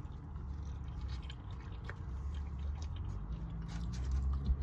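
Close-up chewing and biting of food, soft wet mouth clicks, over a steady low hum.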